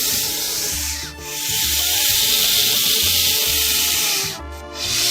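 Loud, drawn-out snake-like hissing in long breaths, broken briefly about a second in and again near the end, over quiet background music.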